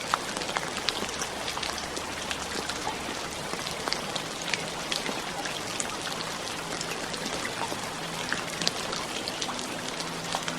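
Steady rain falling, a continuous hiss dotted with many separate drops striking close by.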